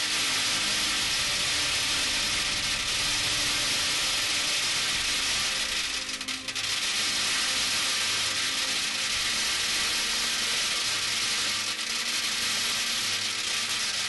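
Metal BBs pouring onto the side of a tin can in a continuous torrent, the strikes so dense that they blur into a steady hiss like heavy rain, briefly thinning about six seconds in. Each BB stands for 10,000 lives lost.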